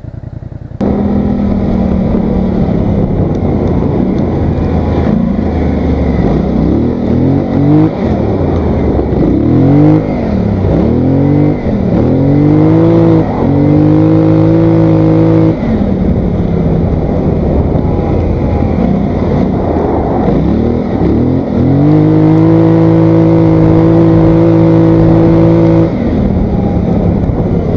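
Polaris Sportsman 850 ATV engine under way, cutting in suddenly about a second in, then revving up and easing off several times before holding a steady pitch at cruising speed, twice, each time dropping back down afterwards.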